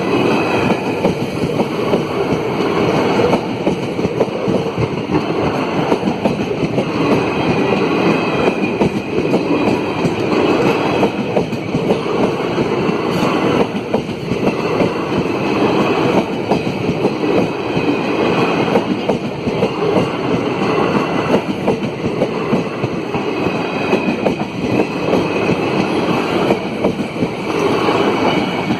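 An Indian Railways express train's coaches rolling past on the track: a loud, continuous rumble of wheels on rails that rises and falls about every two seconds as each coach goes by.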